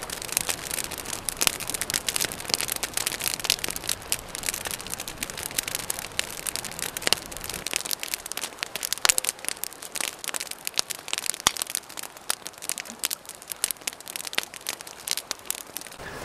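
Campfire of rain-wet wood crackling and popping, with many sharp pops every second.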